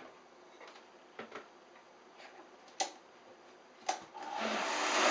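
A few sharp clicks as the Vitamix blender jar is handled and its lid fitted, then a little past four seconds in the Vitamix motor starts and quickly grows loud, blending vegetables with hot water.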